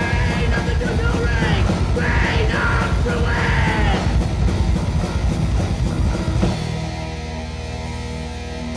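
Thrash metal band playing: distorted electric guitars and fast, pounding drums with yelled vocals. About six and a half seconds in, the drums and riffing stop, leaving a guitar chord ringing.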